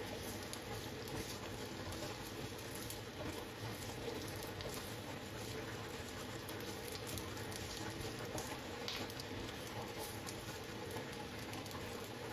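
Food sizzling and crackling in a hot pan, a steady hiss scattered with small pops.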